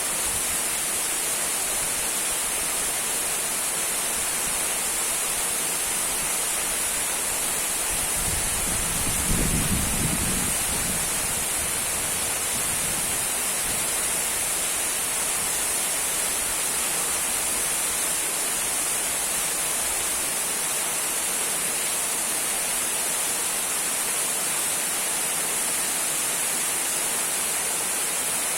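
Small waterfall trickling and splashing in a steady, even hiss. A brief low rumble swells and fades about a third of the way in.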